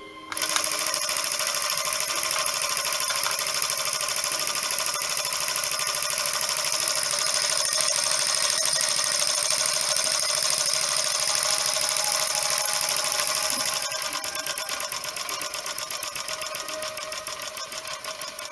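Small single-cylinder double-acting model engine running fast, a rapid stream of exhaust beats with hiss and the clatter of its gearing. About fourteen seconds in it slows a little and gets quieter, the beats becoming more distinct.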